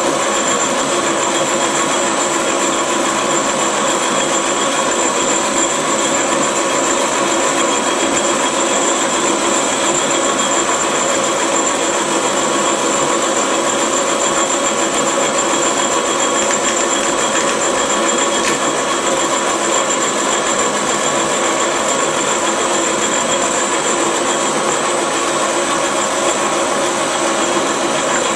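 Holbrook C8 metal-working lathe running steadily in reverse with the threading drive engaged, an even gear-train whir with steady high-pitched whines above it.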